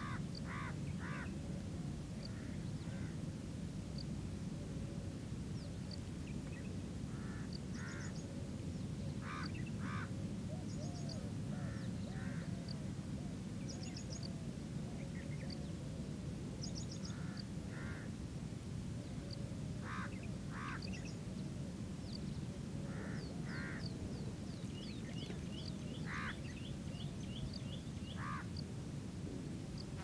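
Calls of several wetland birds: short harsh calls in pairs and threes every few seconds, thin high chirps, and a quick run of rising notes near the end. A steady low rumble runs underneath.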